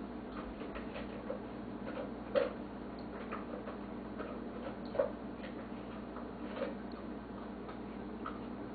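Dog eating from a bowl: scattered, irregular clicks and crunches, the two loudest about two and a half seconds apart, over a steady low hum.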